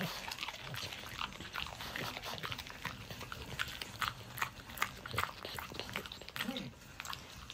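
French bulldog chewing a leaf of napa cabbage: an irregular run of short crunches, several a second.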